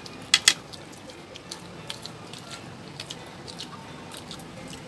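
Eating sounds of two people eating rice and egg curry by hand: chewing and small wet mouth and finger clicks scattered throughout. Two sharp clicks in quick succession about a third of a second in are the loudest.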